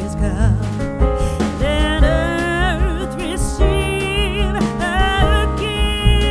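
Background music with a singing voice and instruments.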